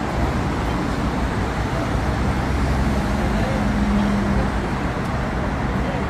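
City street traffic noise: a steady wash of road and vehicle sound, with a low hum swelling and fading around the middle, as of a vehicle passing.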